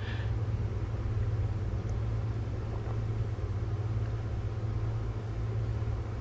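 A steady low hum that holds unchanged, with no distinct knocks or calls over it.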